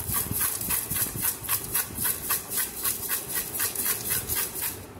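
Cut citron pieces and coarse rock salt being shaken in a container, a rhythmic rattling swish about four strokes a second, mixing the salt through for citron pickle. It stops just before the end.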